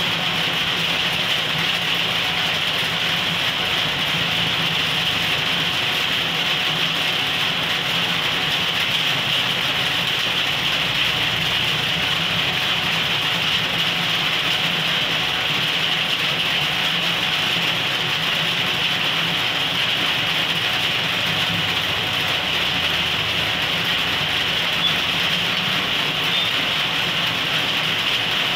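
Steady heavy rain falling, an even hiss, with a low steady hum beneath it.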